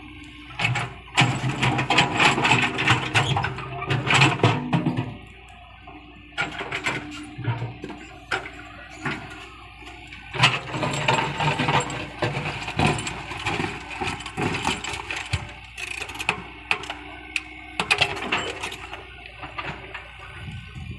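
Komatsu PC75UU excavator at work: the engine rises and falls under load, with irregular clanks and knocks from the machine. The loudest stretches are about a second in and again about ten seconds in.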